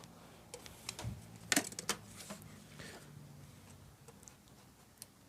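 Scattered light clicks and taps of a tape measure being handled, the loudest about one and a half seconds in.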